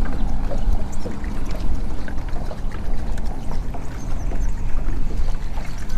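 Water lapping and splashing against a fishing boat's hull over a steady low rumble, with a few faint clicks.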